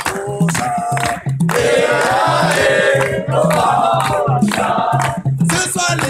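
Several voices singing together over hand drums, with a steady repeating beat underneath.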